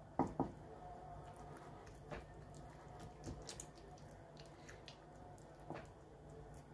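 Silicone pastry brush stirring and beating egg yolk in a small ceramic plate: faint wet squishing with light taps of the brush against the plate, two sharper clicks just after the start. A faint steady hum runs underneath.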